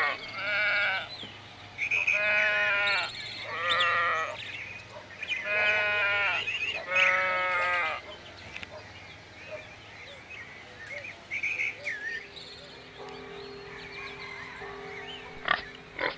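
Sheep bleating: five loud, wavering bleats over the first half, then a quieter stretch with a few faint high chirps.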